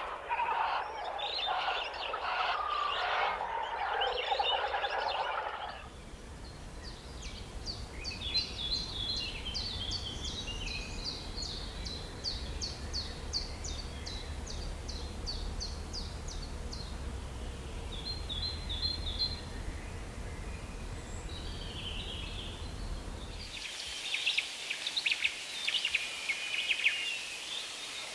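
Bird calls from three different recordings, one after another. First comes a dense chatter of calls. At about six seconds a high, rapidly repeated song starts over a low background rumble. Near the end a different set of high calls takes over.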